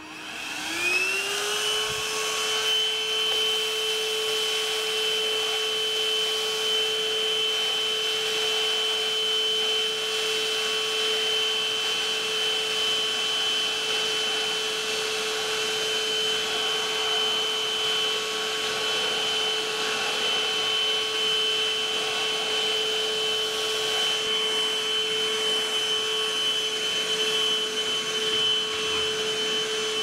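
Novete cordless handheld wet-and-dry vacuum cleaner switched on: its motor whine rises and settles within about a second and a half, then runs at a steady pitch as it sucks up loose yellow meal from a tabletop.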